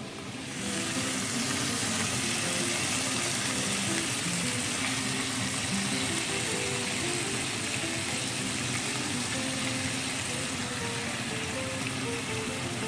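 Salmon and opah fillets frying in sunflower oil in a pan, a steady sizzle, as fresh orange juice is squeezed over them. Background music plays underneath.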